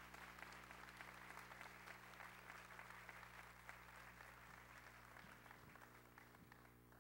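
Audience applauding, a dense patter of claps that thins and fades out near the end.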